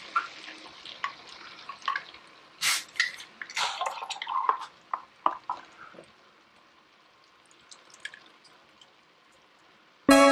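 Liquid splashing and dripping into a stew pot as Guinness Draught stout is poured over the tomatoes and meat, with scattered sharp clicks and a short hissing burst nearly three seconds in. It goes faint after about six seconds.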